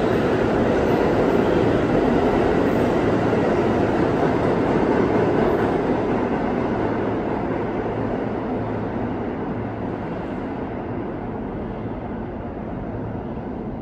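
An R46 subway train running express through the station without stopping, a steady rumble of wheels on rails. It grows quieter from about halfway through as the train pulls away.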